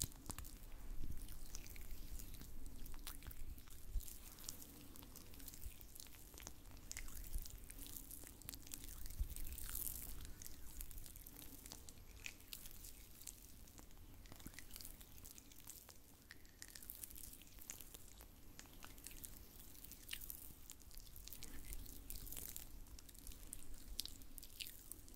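Oiled hands rubbing and pressing close to the microphone for an ASMR oil-massage sound, giving a faint, irregular run of soft wet clicks and crackles.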